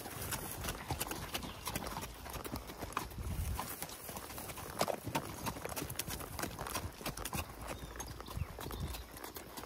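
Horses' hooves clip-clopping along a trail, a steady run of irregular footfalls from more than one horse.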